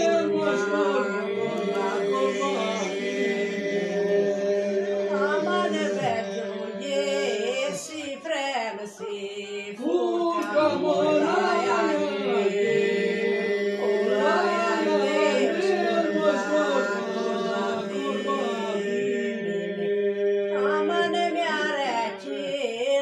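Unaccompanied Aromanian polyphonic folk singing by a small group of voices: a steady drone is held beneath a winding melody, with short breaks between phrases, about a third of the way in and near the end.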